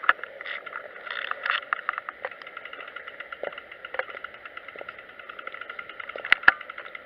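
Muffled riding noise of a motor trike rolling slowly over city streets, heard through a small camera microphone: a steady hum with many small clicks and rattles, and two sharp knocks about six seconds in.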